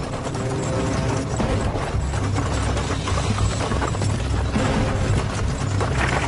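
Pair of ponies galloping in harness, pulling a scurry: fast hoofbeats and the rattle of the light carriage, over background music.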